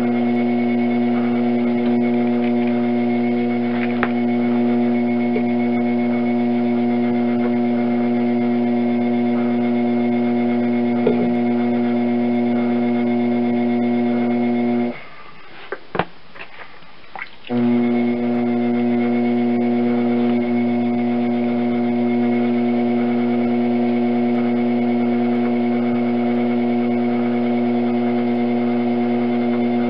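Electric potter's wheel running, its motor giving a steady hum. The hum cuts out for about two and a half seconds around the middle, with a few faint clicks in the gap, then comes straight back.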